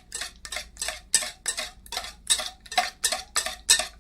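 Pancake batter being beaten in a bowl: a utensil knocks against the bowl in even strokes, about two and a half a second.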